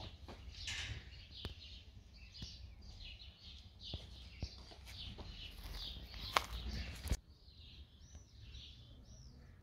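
Outdoor ambience with small birds chirping over and over, a low rumble underneath and a few sharp clicks, the loudest about six seconds in. The background changes abruptly about seven seconds in.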